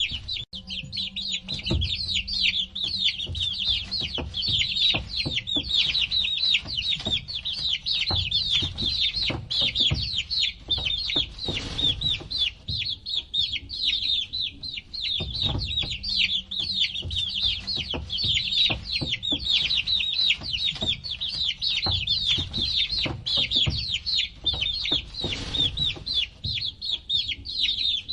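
A group of baby chicks peeping without pause: many overlapping high chirps, each sliding down in pitch, with scattered low knocks and bumps underneath.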